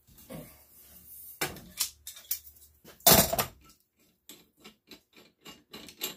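A wrench clanking and scraping on a brass pipe union as it is forced loose, the loudest scrape about three seconds in. Near the end come light, regular clicks as the loosened union nut is turned off the pipe by hand.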